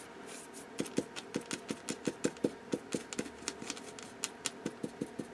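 Paintbrush dabbing paint onto a textured plaque: a quick run of short soft taps, about five a second, starting about a second in.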